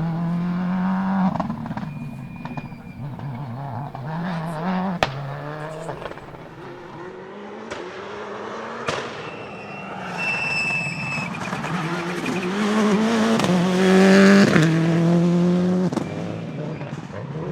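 Subaru Impreza S7 WRC rally car's turbocharged flat-four revving up and falling back again and again, with several sharp cracks from the anti-lag system. It grows loudest near the end as the car comes close.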